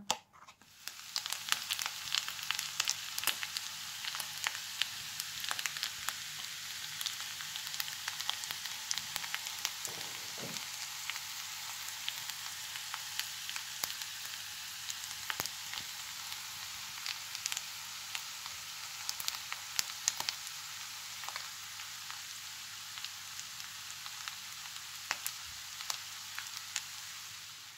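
Food sizzling in a frying pan: a steady hiss with many small crackles throughout, over a faint low hum.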